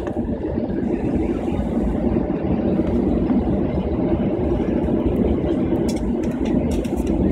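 Steady low rumble of a jet airliner's engines and cabin, heard from a window seat over the wing while the plane moves along the ground before take-off. A few faint clicks come near the end.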